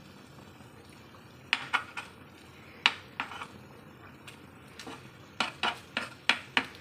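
A metal spatula knocking and scraping against a flat tawa while paneer cubes are turned in it: a dozen or so irregular clicks, coming quicker near the end.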